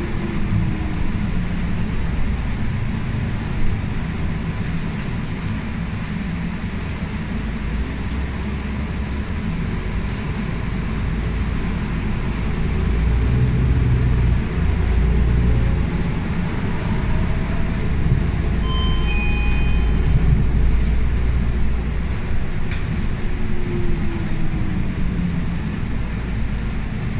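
MAN A95 bus with a ZF EcoLife automatic gearbox, heard from inside the passenger cabin while driving: a steady engine and driveline rumble that grows louder midway as the bus gathers speed. A faint whine rises in pitch midway and falls again near the end. A few short high beeps sound about two-thirds of the way through.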